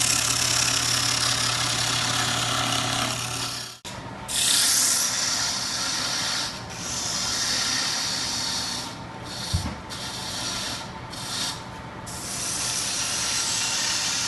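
A 1/8-inch parting tool cutting into wood spinning on a lathe: a steady, loud scraping hiss with the lathe's low hum underneath. The sound breaks off abruptly for an instant about four seconds in, and there is a short knock near the middle.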